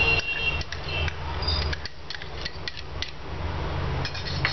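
Mustard seeds tipped from a small steel bowl into hot oil in a small non-stick tadka pan: a ringing metal clink at the start, then scattered sharp ticks and taps, over a steady low hum.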